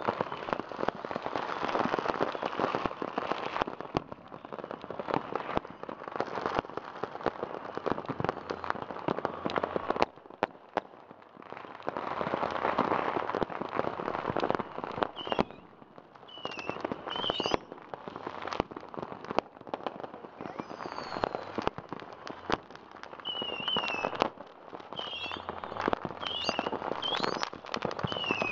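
Fireworks and firecrackers going off all around in a dense, continuous crackle of bangs. From about halfway through, short high whistles that rise and fall join in.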